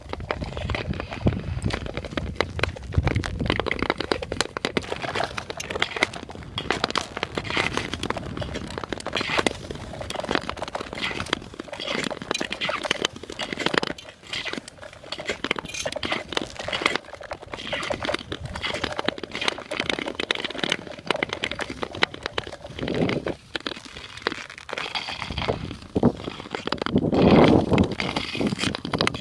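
Ice skate blades scraping and gliding over black lake ice, a steady run of scrapes, clicks and crackles, with a louder rush near the end.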